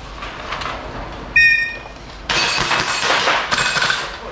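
A shot timer's electronic start beep about a second and a half in, then a line of airsoft gas blowback pistols opening fire, many shots overlapping in quick strings.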